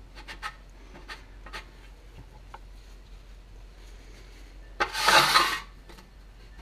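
Paper towel damp with lacquer thinner rubbing over a stainless steel wheel cover, wiping fresh black trim paint off the raised ribs, with light clicks and scrapes. About five seconds in, a loud noise lasts about a second.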